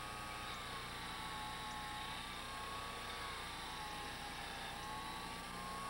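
Small clockmaker's bench lathe running while a cutter parts off a piece of steel rod: a steady whine that sags slightly in pitch and recovers a couple of times, over a low hum.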